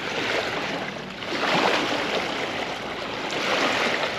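Water rushing and splashing along the hull of a moving sailboat, swelling and easing in surges about every two seconds.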